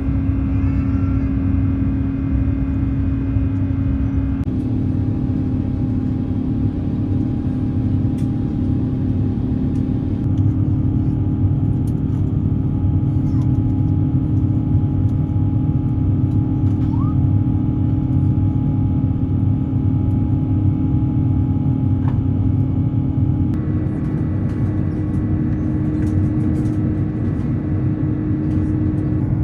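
Airbus A350 cabin noise: a steady low rumble of engines and airflow with a constant hum, the hum's pitch stepping slightly three times.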